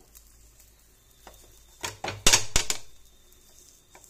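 A metal spatula chopping through an omelette and knocking against a non-stick frying pan. It makes a cluster of sharp clinks about two seconds in, with a few fainter taps before and after.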